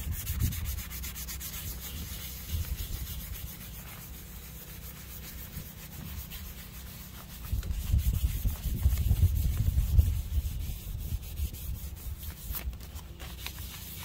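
Sandpaper rubbing back and forth over the brass bell of an old steam whistle, polishing it: a fast run of scratchy strokes that gets heavier and louder from about eight to eleven seconds in.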